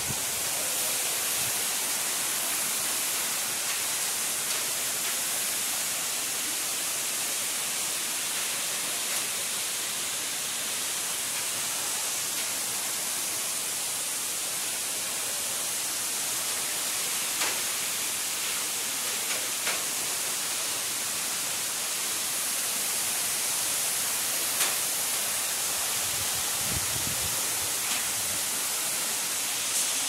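Waterfall rushing: a steady, even hiss of falling water that is strongest in the high end, with a few faint clicks.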